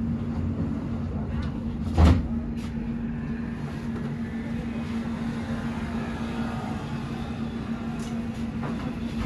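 Steady cabin hum of a standing city bus, with a constant low tone running through it. There is a single loud thud about two seconds in, and a few light clicks.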